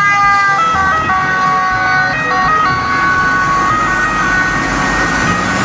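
Italian ambulance's two-tone siren sounding on the move, its loud steady pitch stepping back and forth between a high and a low note, over road traffic noise.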